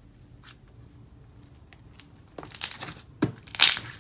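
Hands working a thick, creamy slime: faint crackling while it is stretched, then three loud popping clicks near the end as it is pressed flat and trapped air bursts out.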